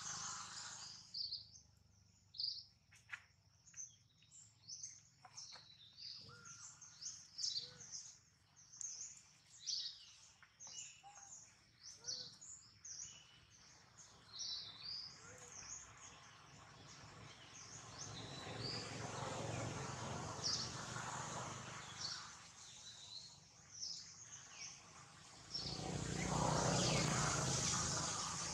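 Many short, high chirps and calls from several birds, scattered and overlapping. A louder rushing noise rises partway through and again near the end.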